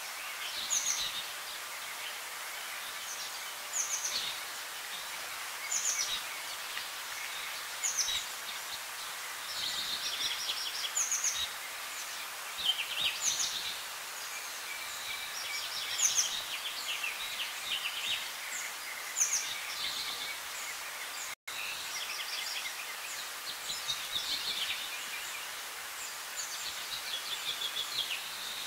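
Birds calling over a steady outdoor background hiss: short, high, falling notes repeated every couple of seconds, mixed with bursts of quick chirping.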